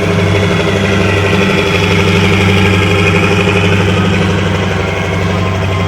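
Heavy military vehicle engine running steadily close by, with a higher whine over the low engine note.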